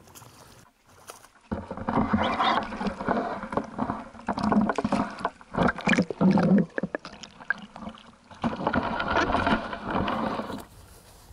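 Water sloshing and splashing right against the microphone of an action camera mounted on a landing net, muffled and gurgling as the net is pushed through and under the lake surface to scoop a carp. It starts abruptly about a second and a half in and stops shortly before the end.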